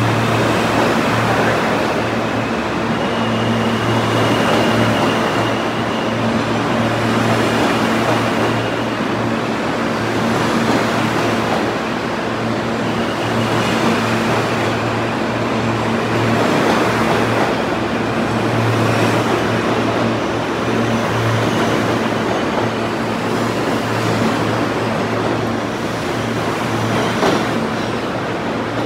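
R160 New York City Subway train running, a continuous rumble of wheels and running gear over a steady low hum that swells and eases, with a faint high tone a few seconds in.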